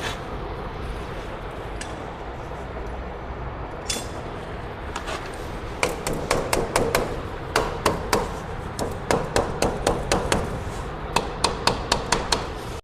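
A run of sharp, irregular taps and knocks, roughly two or three a second, from hand tools at work on the stripped armoured cable. They start about halfway through, over a steady background hiss.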